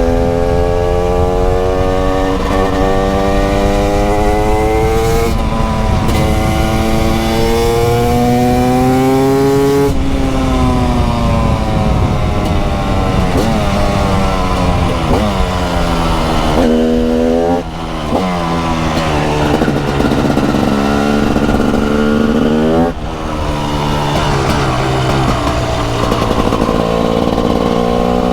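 TM SMR 300 supermoto's 300cc two-stroke single-cylinder engine under way: its pitch climbs in long pulls with drops between them, as at gear changes, then falls off for several seconds as the throttle closes. Two short dips in the second half before it climbs again near the end.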